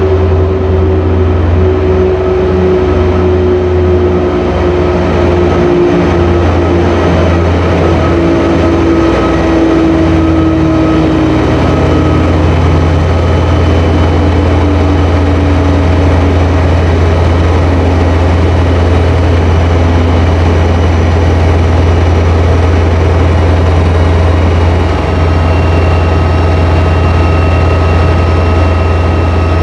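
SNCF CC 72100-class diesel locomotive's Pielstick engine running with a heavy low drone as the train brakes to a stop; a whine falls slowly in pitch over the first twenty seconds as it slows.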